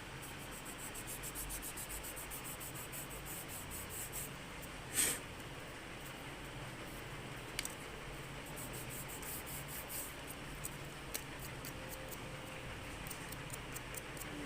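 Faint handling noises from a desktop RAM stick being taken out and cleaned with a rubber eraser: light clicks and scuffs, with one louder scuff about five seconds in, over a low steady hum.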